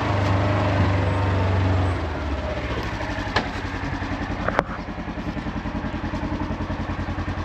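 A vehicle engine running steadily, then dropping to a lower, evenly pulsing idle about two seconds in. Two sharp clicks sound partway through.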